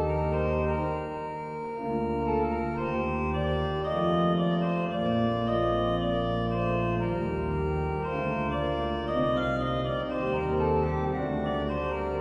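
Church pipe organ playing full sustained chords over deep held bass notes, the harmony changing every second or so.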